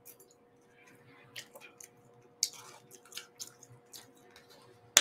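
A person chewing a mouthful of steak and rice close to the microphone, with scattered small wet mouth clicks and smacks. A sharp click near the end.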